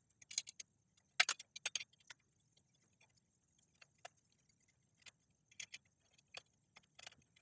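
Scattered light metallic clicks and clinks as a hex key backs out bicycle bottle-cage bolts and the bolts and cage are handled, a quick cluster of the loudest clinks about a second and a half in.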